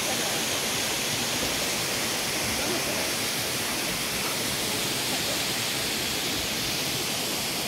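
Steady rushing hiss of a mountain stream's flowing water.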